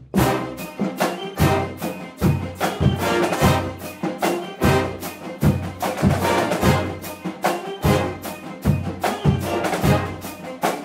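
Instrumental orchestral-style promo music: sustained brass-like chords over heavy percussion hits about twice a second.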